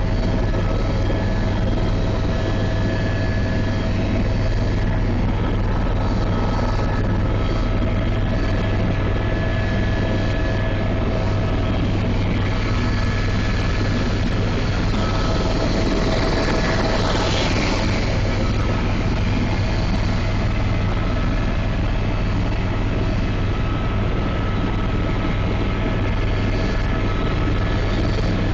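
Helicopter in flight, heard from aboard: a steady, loud drone of turbine and rotor, with several steady whining tones over a heavy low rumble.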